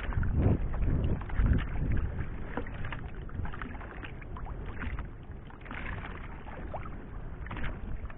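Water lapping and splashing around a small fishing boat, with scattered light knocks. Heavy low rumbles come in the first two seconds, then ease off.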